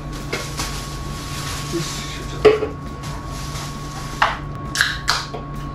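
Handling noises at a wooden desk as a drink can and plastic bag are moved about: a few short knocks and clicks, the loudest about two and a half seconds in, and brief rustles near the end, over a steady faint hum.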